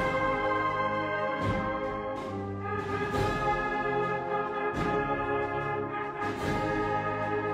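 Brass band music: held brass chords with a regular accent about every second and a half.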